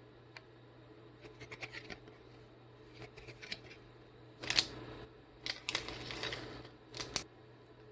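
Packaging being handled at close range: scattered small clicks and taps, with short scratchy rustles about halfway through, and a last pair of clicks near the end.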